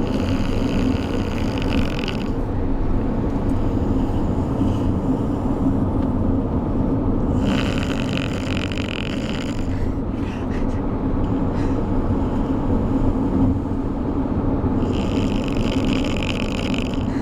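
A sleeping dog snoring in slow, long breaths, three of them about seven seconds apart, over the steady rumble of road noise inside a moving car.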